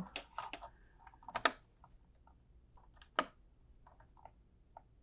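Small screwdriver working the screw terminals of a Zooz ZEN16 relay: irregular faint clicks and ticks of metal on the terminal screws and wires, with a sharper click a little after three seconds in.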